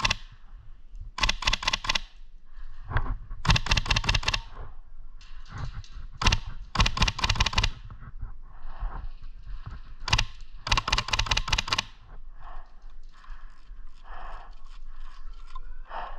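Airsoft guns firing full-auto, about five rapid rattling strings of shots, each half a second to a second long, with fainter scattered shots between.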